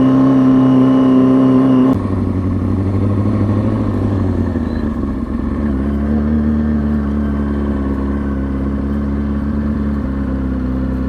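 2003 Kawasaki ZX-6R 636's inline-four engine running at a steady pitch. About two seconds in the note drops abruptly and gets quieter, settling into a lower steady drone as the bike rolls down a residential street.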